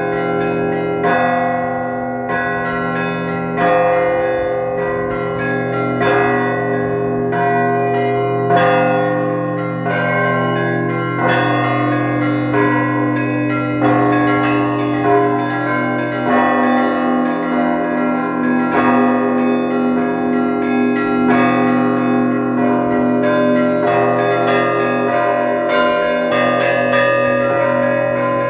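Russian Orthodox church bells rung together in a continuous peal: a heavy stroke about every two and a half seconds, faster strikes of smaller bells between, all over the lingering low hum of the larger bells.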